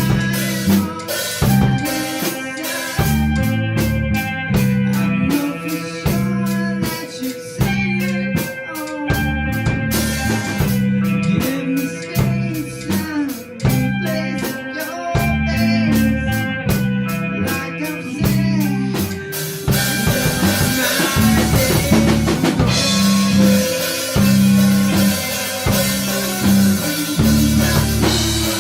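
Electronic-style music: a steady beat of drum hits over a pulsing bass line and held synth tones. The beat thickens about two-thirds of the way through.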